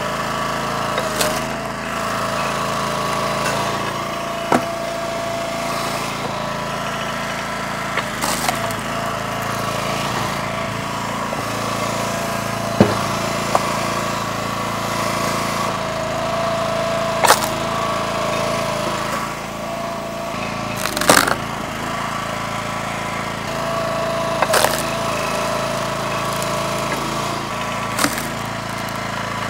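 The small gas engine of a Split-Fire 3490 log splitter running steadily, with a higher tone that comes and goes as the splitter works. Sharp cracks and knocks of wood splitting and split pieces being thrown come about every four seconds.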